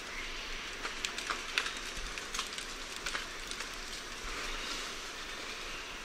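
Lion-tailed macaque moving through vegetation: irregular snapping and crackling of leaves and twigs, thickest in the first few seconds, over a steady background hiss.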